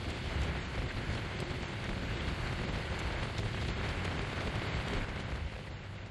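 Wind rushing over the microphone with road noise while riding a Honda Dio 49 cc two-stroke scooter at speed, a steady hiss with a low rumble underneath. It eases off near the end.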